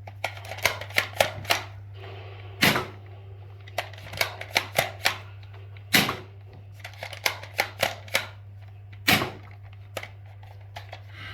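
Nerf foam-dart blaster being handled: a run of irregular sharp plastic clicks and clacks, with several louder cracks spread through, over a steady low hum.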